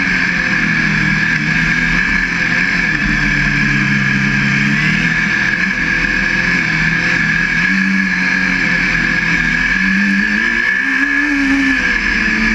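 Formula SAE race car's engine heard from on board while driving a cone course, its pitch falling and rising as the car slows and accelerates between cones, dipping for a couple of seconds a few seconds in and climbing again near the end. A steady high-pitched whine runs beneath it.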